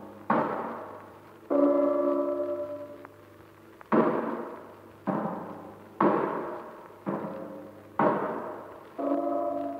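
Struck percussion in an experimental music piece: eight heavy strikes, mostly about a second apart, each dying away. Two of them ring on with a held metallic pitched tone.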